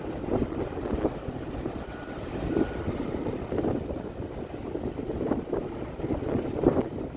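Gusty wind buffeting the microphone: a low, rumbling rush that surges unevenly every second or so.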